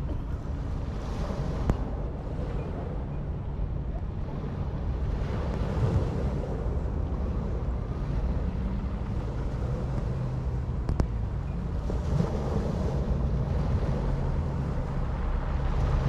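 Small sea waves washing up onto a pebble beach, a soft surge of wash every few seconds, over a steady low rumble of wind on the microphone.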